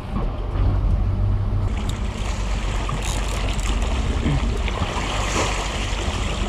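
A fishing boat's engine running steadily at low speed, a constant low rumble, under a hiss of water and wind; from about two seconds in the water splashing grows louder as a hooked king salmon churns the surface beside the hull.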